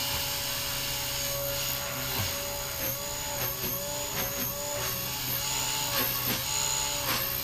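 Blade Fusion 180 electric RC helicopter's motor and rotor whining steadily at stunt-one flight-mode headspeed, the pitch dipping briefly half a dozen times as the rotor takes load.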